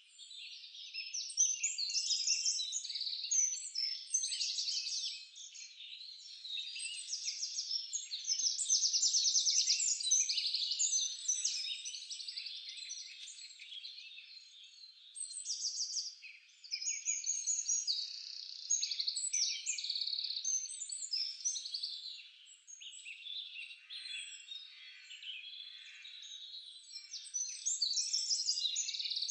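A chorus of small birds chirping and trilling without a break, many overlapping short calls with fast rattling trills now and then.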